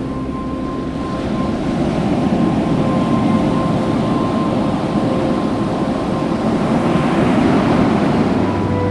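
Steady rush of surf and wind buffeting the microphone, with sustained background-music tones held underneath.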